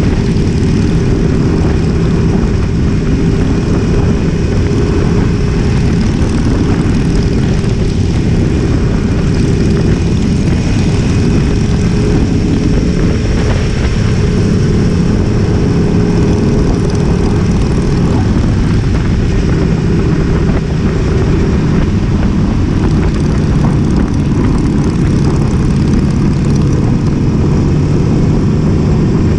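Motorcycle engine running steadily at cruising speed along the road, heard from the bike the camera rides on. Wind and road noise rush over the microphone.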